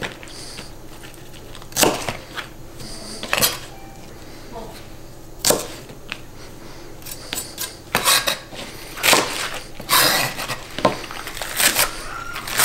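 Kitchen knife chopping green onions on a cutting board. A few separate knocks come first, then a run of quick chopping strokes against the board from about eight seconds in.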